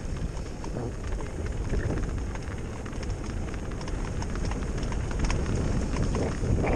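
Mountain bike riding down a dry dirt and gravel trail: tyres crunching over loose stones and the bike rattling in a stream of small irregular clicks, over wind rushing across the microphone.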